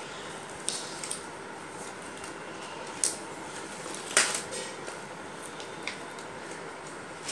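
Paper greeting card being handled: a handful of short rustles and taps over a steady background hum, the loudest about three and four seconds in.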